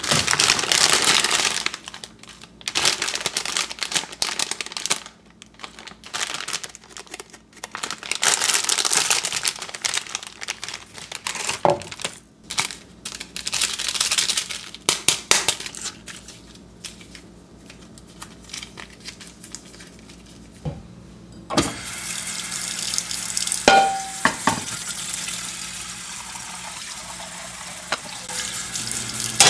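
Plastic ramen wrapper and seasoning packets crinkling in bursts during the first half. From about two-thirds of the way in, water runs steadily into an empty nonstick wok, with a couple of clinks just after it starts.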